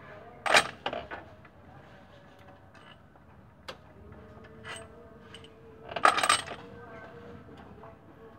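Metal hand tools clinking against the cylinder head of a Toyota 2TR engine being dismantled: a sharp clink about half a second in, a few lighter ones, then a louder burst of clinks and clanks about six seconds in.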